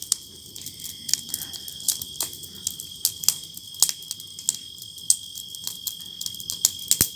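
Wood bonfire crackling, with irregular sharp pops, over a steady high-pitched insect trill.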